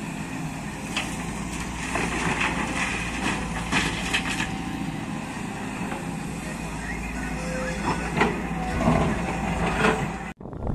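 Volvo EC210 crawler excavator's diesel engine running steadily under hydraulic load while the bucket digs, with repeated clanks and scrapes of the bucket against rock and soil.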